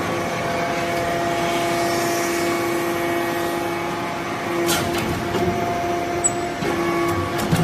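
Hydraulic briquetting press for magnesium dust and metal chips running with a steady hum, with a short sharp click about two-thirds of the way through and a few knocks near the end.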